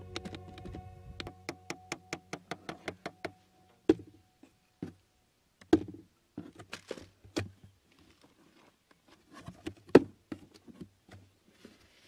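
Quick, even taps of a hatchet against the cardboard box trap and its wire fittings, about five a second for the first three seconds, then scattered single knocks and light rustling as hands handle the cardboard and wire.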